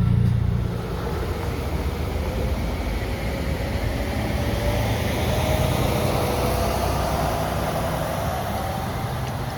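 SEPTA Route 34 trolley running, with a steady rumble and a faint whine that slowly rises in pitch through the middle of the stretch as the car picks up speed.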